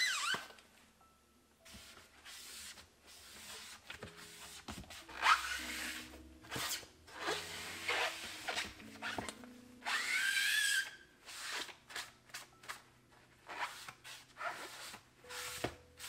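A Mr. Clean melamine sponge in a rubber-gloved hand rubbing and wiping along a dishwasher's stainless steel tub and door edge in short irregular strokes. A few squeaks, the loudest about five seconds in and again at about ten seconds.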